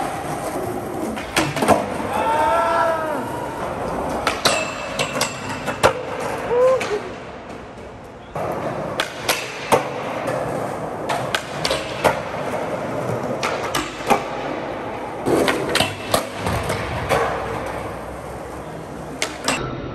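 Skateboard wheels rolling on concrete, with repeated sharp clacks of the board popping and grinding or sliding on a metal flat bar. Near the end, a skater bails and the board clatters away.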